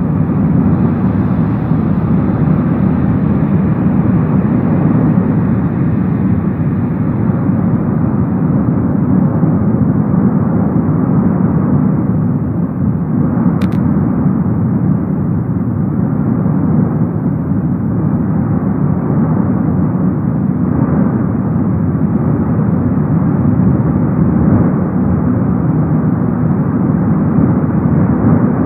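Cumbre Vieja's lava fountain erupting: a continuous, steady deep noise of the volcano jetting, with a single sharp click about halfway through.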